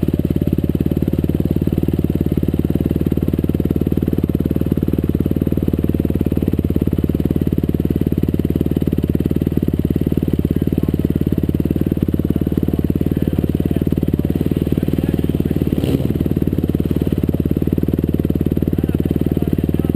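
Dirt bike engine running steadily at one even speed, a close, continuous motorcycle exhaust note with no revving.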